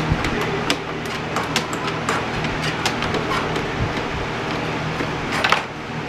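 Light metallic clicks and clinks as a Yamaha R1's exhaust muffler is worked loose and pulled off its mount, with a short scraping rasp near the end. A steady low hum runs underneath.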